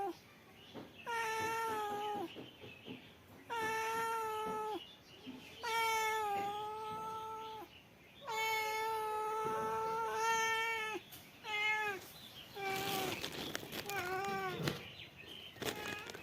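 Male domestic cat meowing over and over: about seven separate meows with short pauses between them, the first few long and held at a steady pitch, the last three shorter and rougher.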